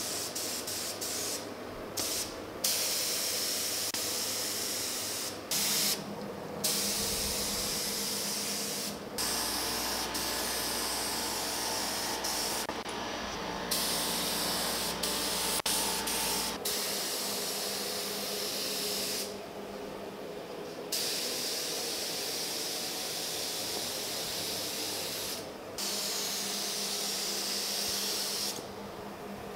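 Paint spray gun laying down clear coat: a steady high hiss in passes of a few seconds each, cutting out briefly about a dozen times as the trigger is let go between passes.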